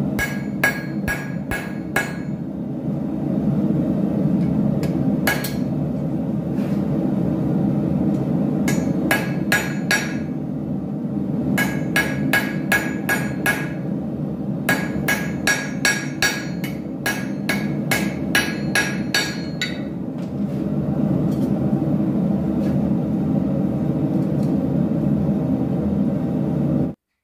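Hand hammer striking red-hot angle iron on an anvil, in runs of about three blows a second with pauses between, each blow ringing briefly. A steady low rushing noise runs underneath.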